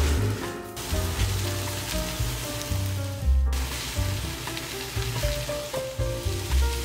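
Shrimp fried rice sizzling in a hot frying pan as it is stirred and tossed with a wooden spatula. The sizzle drops out briefly twice. Background music with a melody and bass plays over it.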